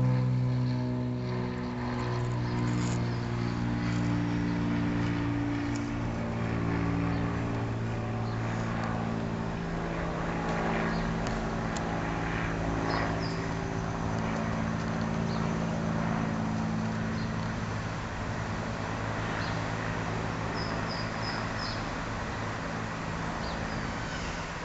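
A motor running steadily, a low hum whose pitch holds for a few seconds and then shifts, with a few short high chirps over it.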